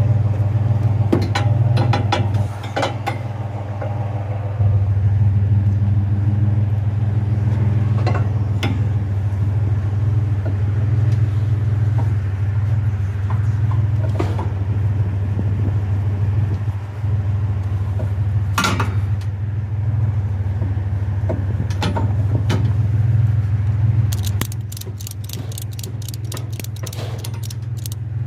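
Vehicle engine idling with a steady low hum, over scattered knocks and rattles of light metal scrap being handled. A quick run of clicks comes near the end.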